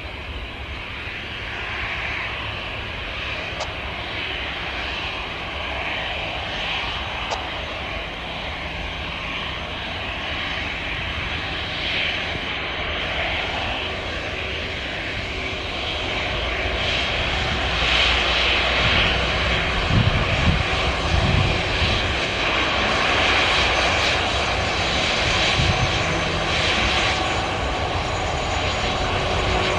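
Jet engines of an Airbus A320 airliner on the runway: a steady rushing noise over a low rumble, growing louder about halfway through.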